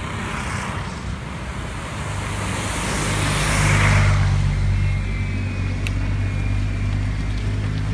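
Road traffic on wet pavement: cars passing with tyre hiss, one passing close and loudest about four seconds in, over a steady low engine hum.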